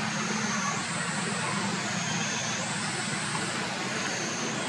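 Steady outdoor background noise: a low hum under a high, thin whine that steps up and down in pitch about every two seconds.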